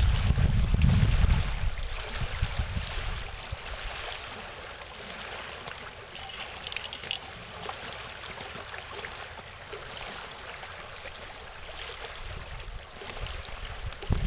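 Wind buffeting the microphone, a heavy rumble for the first second or so that then eases, over small lake waves lapping and trickling on a gravel shore.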